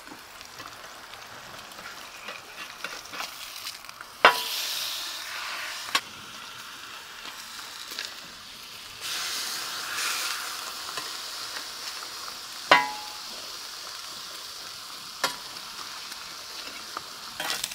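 Thick round-cut bacon frying on a plancha, its fat rendering out with a steady sizzle that swells a couple of times. A few sharp clicks are heard through it.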